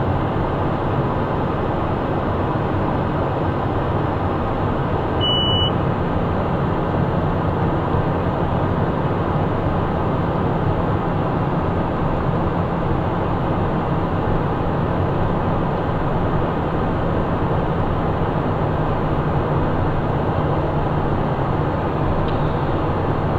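Steady in-flight cockpit noise of a Cessna Citation 501 business jet: rushing airflow and the drone of its twin turbofans, with a steady low hum underneath.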